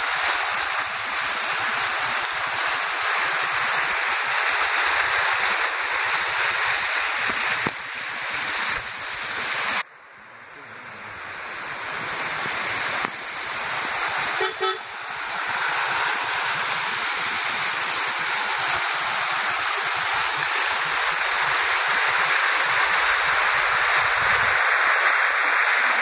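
Rushing water of a swollen, fast-running stream, a loud steady rush that cuts off and comes back a couple of times. A brief high tone sounds about halfway through.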